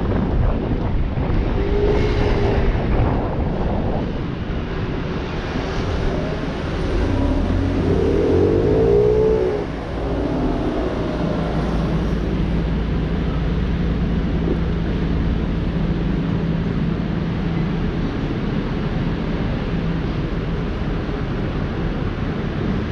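Aprilia SXR 50 scooter engine running under way, rising in pitch as it accelerates about eight seconds in. It then drops to a steady idle from about ten seconds on while the scooter waits at a crossing.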